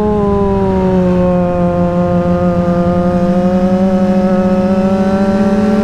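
Yamaha R6 inline-four engine running at steady high revs under way. The pitch eases down slightly over the first two seconds, then holds level.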